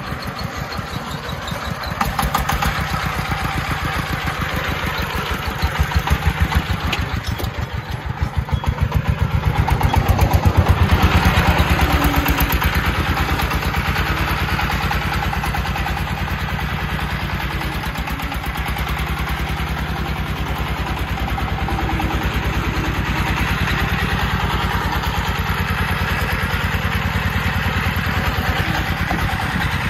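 Công nông three-wheeled farm truck's single-cylinder diesel engine running as the truck drives, with a fast, steady chugging beat. It grows louder for a few seconds about ten seconds in.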